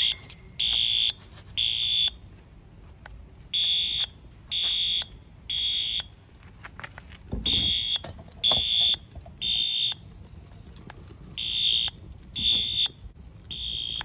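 Wheelock AS fire alarm horn sounding the temporal-3 evacuation pattern: three half-second blasts about a second apart, then a pause, with the groups repeating about every four seconds. The horn keeps sounding while the device is on fire.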